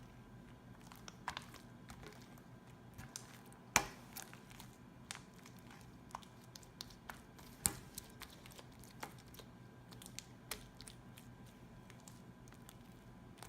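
Sticky homemade glue-and-borax slime being handled, making scattered small wet clicks and pops, with two louder pops about four seconds in and near eight seconds.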